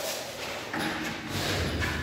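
Paint roller on an extension pole working paint onto a wall: noisy swishing strokes, with a low thud about a second and a half in.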